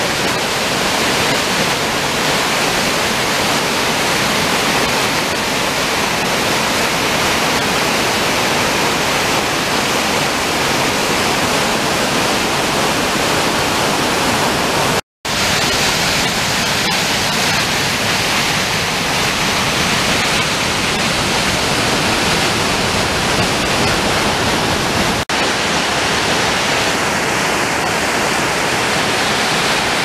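A river waterfall, whitewater pouring over rocks with a steady, loud rushing. The sound cuts out for an instant about halfway through, then carries on unchanged.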